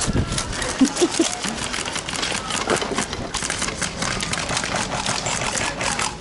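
Airsoft electric guns firing in rapid bursts, a dense, irregular rattle of sharp clicks.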